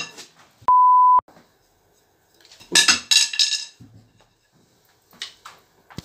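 A loud, steady electronic beep at one pitch, about half a second long. Then a cluster of bright metallic clinks about halfway through and a fainter few near the end.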